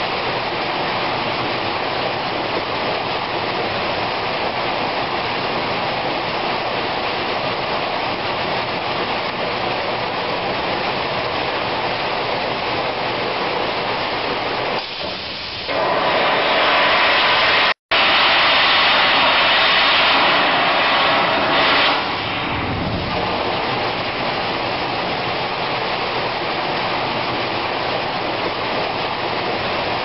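Steady rushing noise of an IVAC PV500 air-powered industrial vacuum pumping out a mine sump. About halfway through it grows louder and harsher for around six seconds, with a momentary dropout, then settles back to its steady level.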